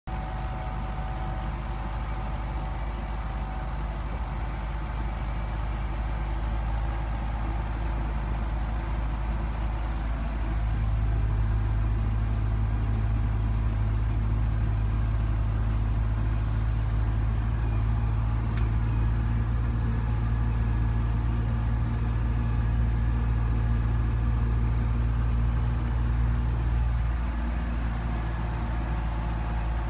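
Belarus MTZ 820 tractor's four-cylinder diesel engine running steadily under load as it pulls a seven-disc plough through the field, heard from the cab. Its low hum grows louder about ten seconds in and eases back near the end.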